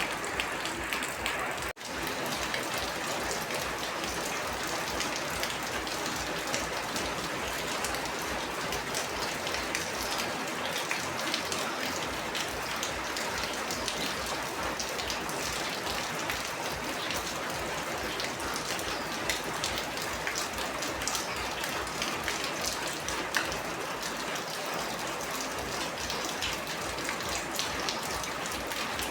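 Steady rain falling, a dense even patter of drops. The sound cuts out for an instant about two seconds in.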